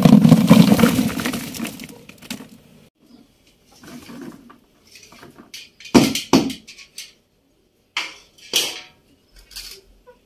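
Salted raw mango pieces tumbling into a plastic bucket: a dense clatter for about the first two seconds. Then a few separate knocks and clanks around six and eight seconds in as a steel sieve is handled against the bucket.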